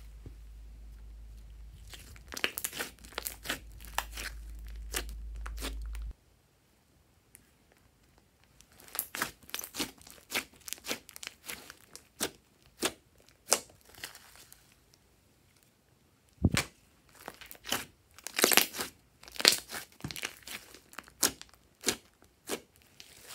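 Hands squeezing, stretching and folding a large mass of glossy slime, making sticky crackles, pops and tearing sounds in irregular clusters. A low hum under the first six seconds cuts off suddenly.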